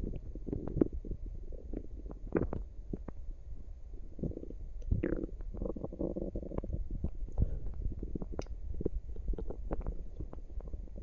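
Human stomach gurgling: irregular wet gurgles and quick clicks over a low rumble, the sounds of an active, digesting gut.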